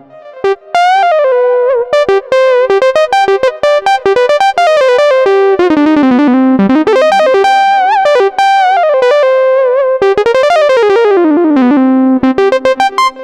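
Arturia AstroLab stage keyboard playing a preset: a fast single-note melody with pitch slides between notes.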